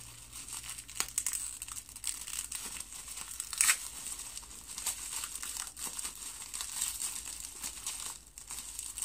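Packaging crinkling and rustling as a bath bomb is unwrapped by hand: irregular crackles throughout, the sharpest about three and a half seconds in.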